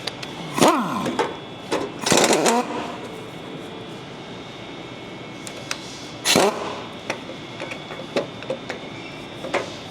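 Hand tools working an 18 mm bolt out of a truck's bumper mount: a few metallic clanks and scrapes, with a short squeak near the start, over a faint steady background tone.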